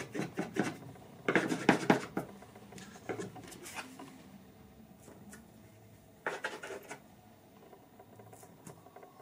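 Short clattering knocks and taps from a carved wooden pastry stamp and a plastic dough scraper handled on a tabletop, in four brief bursts, the loudest about a second and a half in.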